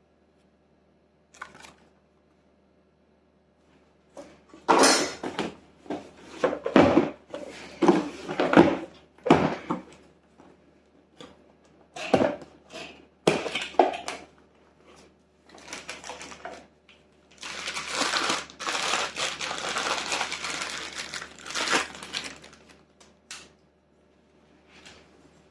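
Packaging being unwrapped and handled: irregular crinkling and knocks, then several seconds of continuous rustling of wrapping about two-thirds of the way in.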